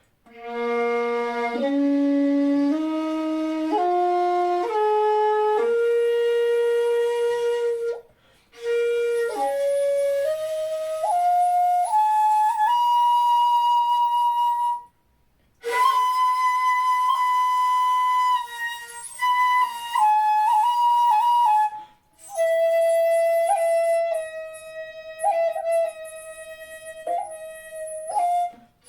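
A 2.2 (2 shaku 2 sun) jinashi shakuhachi in B-flat, played as a sound check. It climbs a scale note by note from the low register into the upper octave in two phrases, then holds a long high note with small turns. It ends on a run of repeated middle notes with quick flicks, with short breath pauses between phrases.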